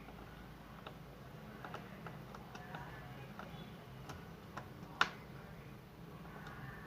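Scattered small clicks and taps of tools and plastic mouse parts being handled on a workbench, with one sharper click about five seconds in, over a steady low hum.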